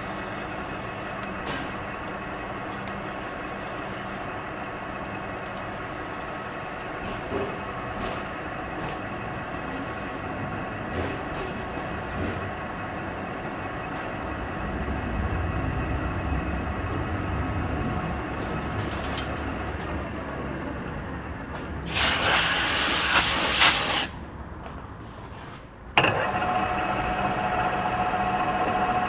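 Metal lathe running, a hand file drawn in repeated strokes against the spinning workpiece. About three-quarters of the way in, a loud hissing rasp lasts about two seconds; then the sound drops, and after a sudden change the lathe runs on with a steady whine.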